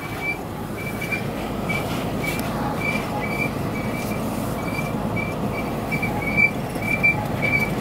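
A short, high-pitched squeak repeating evenly about three times a second from a Dodge Ram dually pickup carrying a truck camper as it drives slowly, heard from inside the cab over steady tyre and engine noise. The driver doesn't know what is squeaking.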